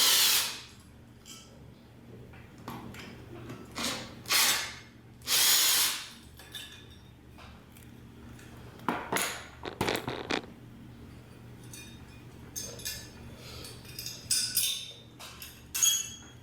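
Power drill running in several short bursts, backing Tapcon screws out of a concrete ceiling, followed by scattered metal clicks and clinks.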